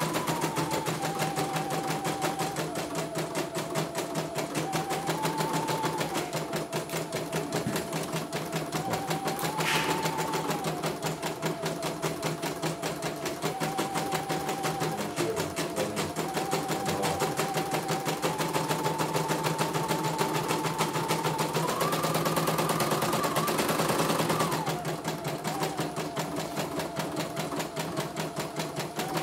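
CNY computerised embroidery machine stitching: a fast, even rattle of needle strokes under a motor whine that steps up and down in pitch several times as the stitching speed changes, highest a little over three-quarters of the way through.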